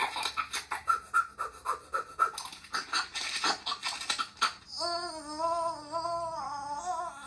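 Cartoon character's voice from a TV speaker: a rapid run of short, breathy mouth noises, about five a second, then about two-thirds of the way in a long, wavering held vocal cry.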